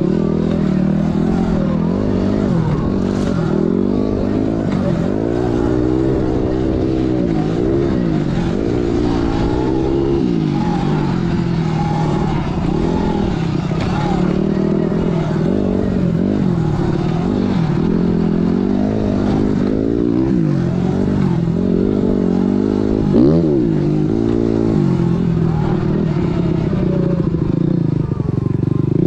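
Sur Ron electric dirt bike's motor whining, its pitch rising and falling over and over as the throttle is worked along the trail, over steady noise from riding.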